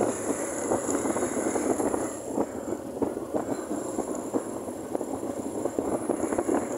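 Small motorcycle engine running steadily while riding, mixed with wind and road noise.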